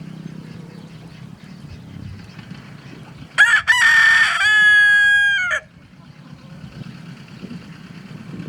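Leghorn rooster crowing once, about three seconds in. The crow starts with a couple of short notes, holds one long note, then drops off sharply, about two seconds in all.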